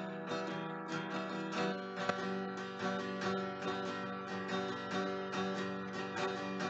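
Background music: acoustic guitar, plucked and strummed in a quick, busy pattern.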